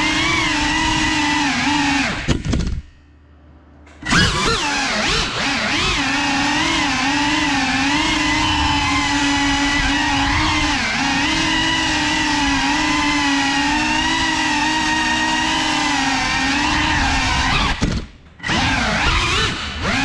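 FPV quadcopter's electric motors and propellers whining, the pitch wavering up and down with the throttle. The sound drops away for about a second a few seconds in, and briefly again near the end.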